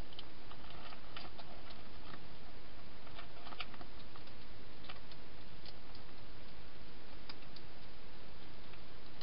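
Wild hedgehog eating inside a plastic feeding box: irregular small crunching clicks, thickest in the first few seconds and sparser later, over a steady hiss.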